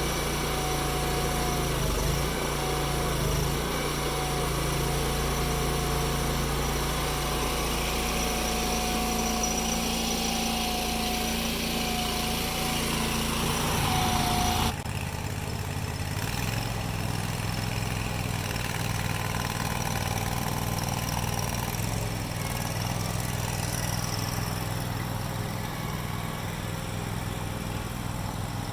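A small engine running steadily, its pitch dipping briefly twice early on as if under load. About halfway through the sound changes abruptly to a lower, evenly pulsing engine running.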